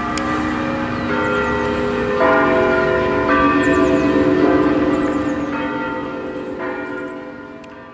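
Church bells ringing: several bells of different pitch struck one after another about once a second, their tones overlapping and hanging on, fading somewhat near the end. Wind rumble runs underneath.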